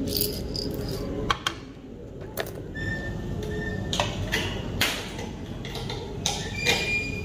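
Coffee-bar background: scattered light clinks and taps of cups and glassware over steady low room noise, with a few brief ringing tones.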